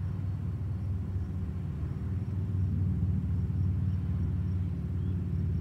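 Low, steady engine drone of an approaching diesel locomotive, growing slightly louder.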